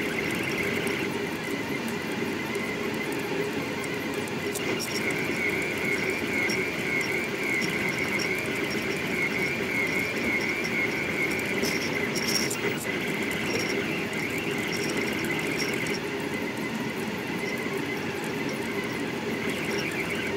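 Delta Rostock 3D printer's stepper motors running at high print speed, a steady high-pitched whine that swells and eases as the effector darts around, with faint rapid ticks over it.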